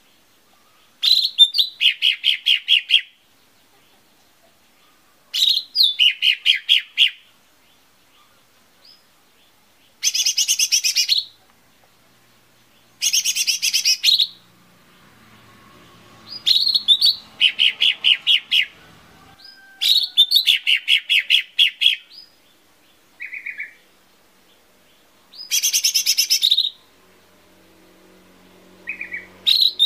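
Lesser green leafbird (cucak ijo mini) singing in short phrases of rapid, repeated chirping notes. Each phrase lasts one to two seconds, with a few seconds' pause between, about nine phrases in all.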